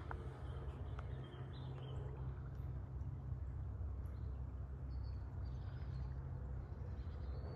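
Outdoor ambience on a path through wetland: a steady low rumble with a few faint, short bird chirps.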